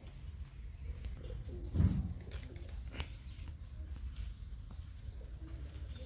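Birds calling outdoors: short high chirps every second or so, over a steady low rumble, with a brief low thump about two seconds in.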